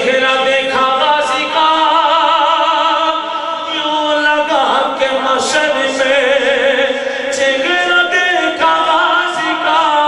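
A man singing Urdu devotional verses into a microphone in long, drawn-out notes with a wavering vibrato.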